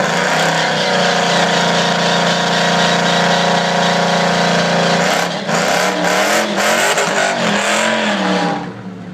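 Pontiac Trans Am with a full exhaust at wide-open throttle down a drag strip: a loud, steady engine note climbing slowly for about five seconds, then wavering up and down in pitch before it drops away sharply near the end.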